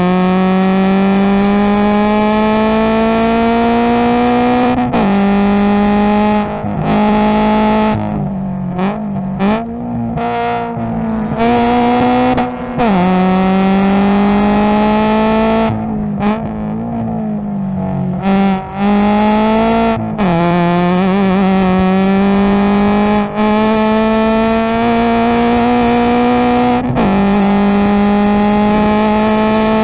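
Subaru BRZ's 2.0-litre flat-four racing engine, heard from inside the cabin through its aftermarket header and Invidia N1 cat-back exhaust. It pulls hard with the pitch climbing steadily, then drops sharply four times. The note turns choppy and uneven in two stretches around the middle.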